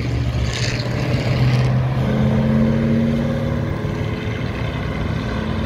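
Classic car driving past with its engine running as a steady low drone. A hiss of tyre noise fades out about two seconds in.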